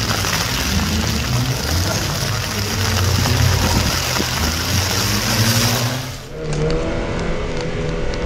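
First-generation Mazda MX-5's four-cylinder engine revving up and down as it drives through the cones, over a steady hiss of rain on wet tarmac. About six seconds in, this gives way to a steadier engine drone heard from inside another car.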